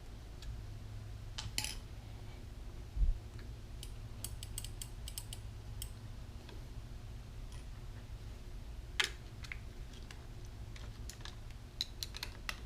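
Scattered light clicks and ticks of a drink-holder perch mount and its hardware being handled and fitted, with a dull bump about three seconds in and a sharper click about nine seconds in, over a low steady hum.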